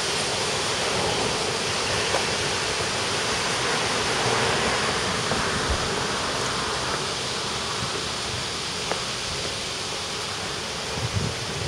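Steady, even rushing noise of outdoor street ambience beneath a concrete railway viaduct, with a few faint ticks and some low wind buffets near the end.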